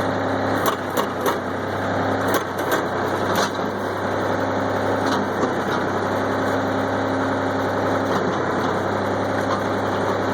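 Backhoe's diesel engine running steadily, with scattered sharp cracks and snaps in the first few seconds as crushed trash and furniture in the dumpster give way.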